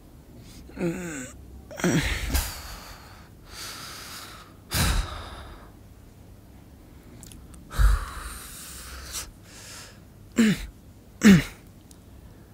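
A man waking up: short groans that fall in pitch and heavy breathy exhales or sniffs, a few seconds apart, with the loudest groan near the end.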